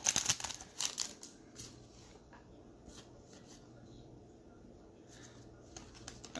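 Trading cards being handled: a quick run of rustles and flicks in the first second and a half, then only a few faint ticks.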